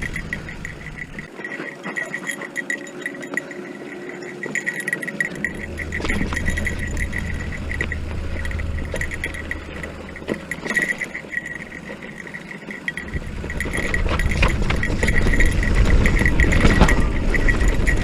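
Electric mountain bike riding over a rough dirt trail, with the bike rattling and clicking over the bumps and wind rumbling on the microphone. The rumble eases off early on and grows louder from about two thirds of the way through.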